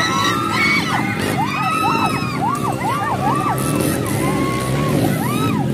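Several dirt-bike engines revving at a race start, their pitch repeatedly rising, holding and falling with quick throttle blips over a steady low engine rumble.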